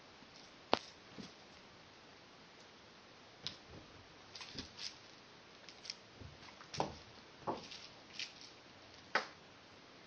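A kitten's paws and body bumping and tapping against a door and carpet while it plays: scattered light knocks and taps at an irregular pace, with sharper knocks about a second in and near the end.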